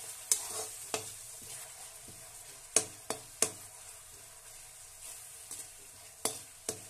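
Slotted metal spoon stirring sauce-and-spice masala frying in oil in a metal kadhai: a soft sizzle under about seven sharp clinks of the spoon striking the pan, the loudest a cluster of three near the middle.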